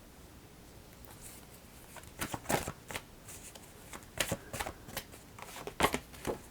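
A deck of oracle cards being shuffled by hand, in three bursts of quick flicking clicks starting about two seconds in.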